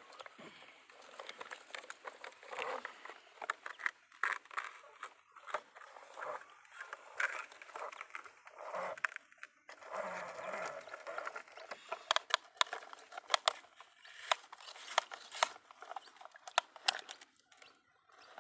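Plastic toy trucks and a toy excavator being handled in wet dirt and muddy puddle water: irregular scraping, rustling and sloshing, with a run of sharp plastic clicks and knocks in the second half.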